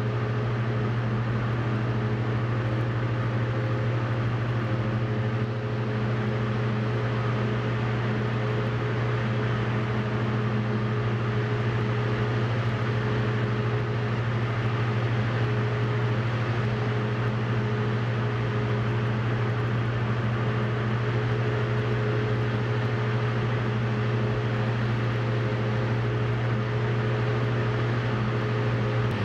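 Diesel Cessna 172's engine and propeller running at steady power, heard inside the cockpit as an even drone that holds one pitch throughout.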